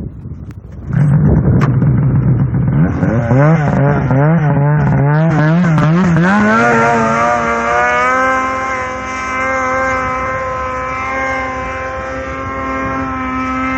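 Polaris RMK snowmobile's two-stroke engine pull-started, catching about a second in. It is blipped unevenly for a few seconds, then revs up and is held at a steady fast idle.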